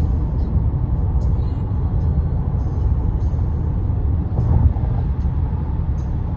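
Tyre-on-pavement noise heard inside a car's cabin at highway speed: a steady low rumble from the road surface, swelling briefly a little past four seconds in.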